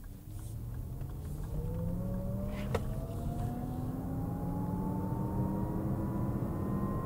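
Lexus RZ 450e dual-motor electric SUV accelerating hard in sport mode, heard from inside the cabin. Several tones climb slowly together in pitch as the speed builds, over rising road and tyre noise; this is the car's simulated engine sound, meant to sound like a 4-cylinder. A single click comes partway through.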